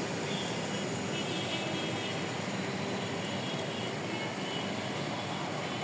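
Steady rain falling, an even rushing noise.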